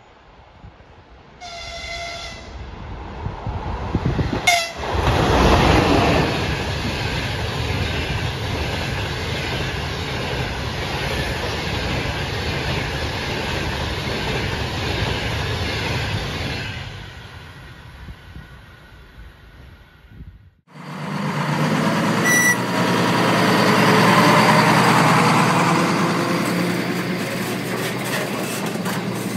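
Approaching train sounding its horn twice, a blast of about a second near the start and a short toot a few seconds later, then a locomotive-hauled passenger train passing at speed, its wheels and coaches rumbling and fading away. After an abrupt cut, a rail-maintenance train of yellow track-laying cars rolls by with wheels clattering on the rails.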